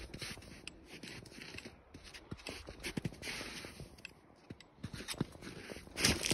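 Footsteps crunching and scuffing across old snow and loose, flat scree rock, in irregular steps, louder near the end.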